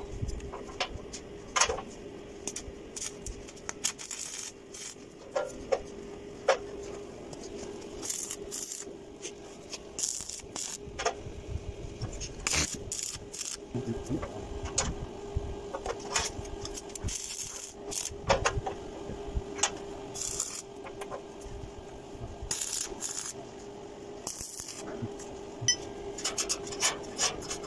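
Irregular metallic clinks, taps and scrapes from steel pipe and stair parts being handled and fitted, many short sharp knocks at uneven intervals over a faint steady hum.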